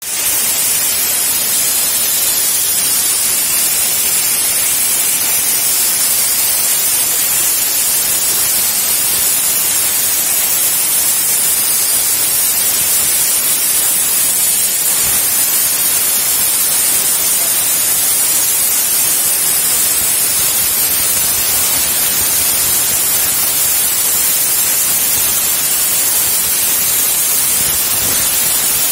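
CNC plasma cutter torch cutting steel sheet: the plasma arc and its gas jet make a loud, steady hiss.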